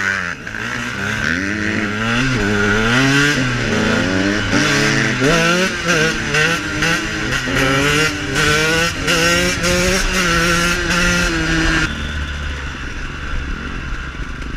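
KTM dirt bike engine accelerating hard and shifting up through the gears, its pitch climbing and then dropping back at each shift. About twelve seconds in, the sound changes abruptly to a steadier low rumble.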